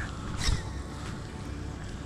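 A baitcasting rod being cast, with one short swish about half a second in. A steady low background rumble runs under it.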